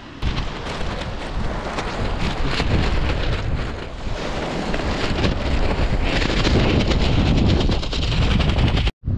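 Strong wind buffeting the microphone: a loud rumbling hiss with many crackles, cut off abruptly near the end.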